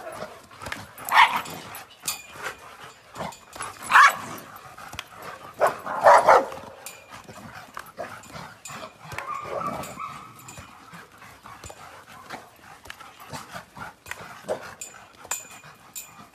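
Several dogs barking and yelping in excited play. There are a few loud, sharp barks in the first several seconds, then a drawn-out whine around the middle, with quieter yips scattered throughout.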